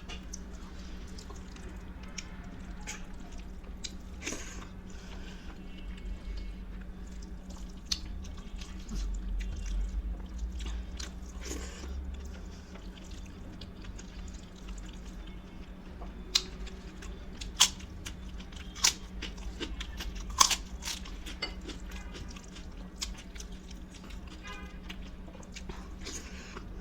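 Close-miked chewing and crunching of food, with scattered sharp crunches, the loudest a handful of snaps a little past the middle. A steady low hum runs underneath.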